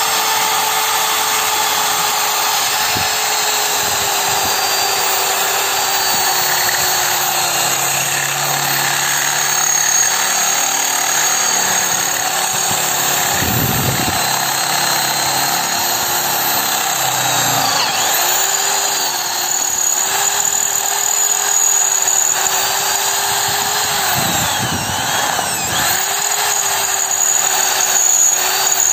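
Corded electric drill running steadily as its bit cuts into a steel pipe, cooled with poured water. The motor's pitch dips briefly three times under the drilling load.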